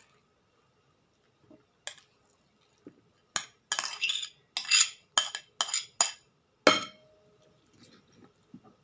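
Cutlery clinking and scraping against dishes: about ten sharp clinks and a couple of short clattering scrapes bunched in the middle. The last clink, a little before the end, is the loudest.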